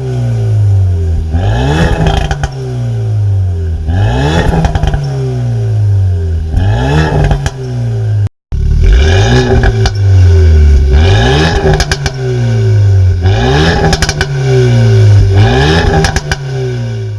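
Renault Megane 4 R.S. 280's turbocharged four-cylinder engine, through a Milltek non-resonated catback exhaust, revved over and over: each rev climbs quickly and falls away more slowly, with crackles and pops as the revs drop. There is a brief break about halfway through.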